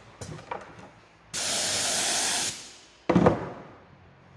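Air-fed upholstery spray gun hissing steadily for about a second as it sprays glue, then a short, louder thump with a rustle that fades quickly.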